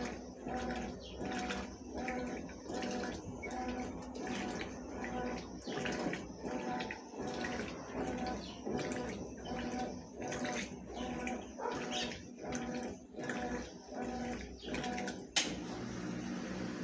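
Consul CWS12 washing machine agitating a load in water: the motor hums and the water sloshes in a steady back-and-forth rhythm, a bit under two strokes a second, with the pitch rising and falling on each stroke. A single sharp click near the end.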